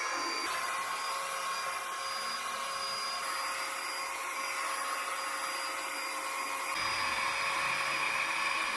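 Small battery-powered handheld vacuum cleaner motor running with a steady high-pitched whine and airflow hiss. Its tone shifts slightly about half a second in and again near the end.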